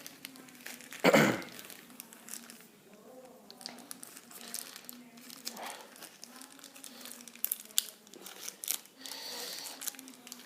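Packaging being crinkled and torn open by hand to unbox a folding knife: irregular crackling and rustling with scattered small clicks, and a louder burst about a second in.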